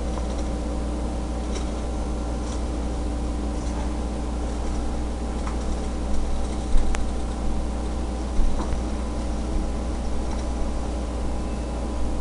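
A steady electrical or machine hum with a low rumble and several fixed tones, with a few faint clicks and knocks between about six and eight and a half seconds in.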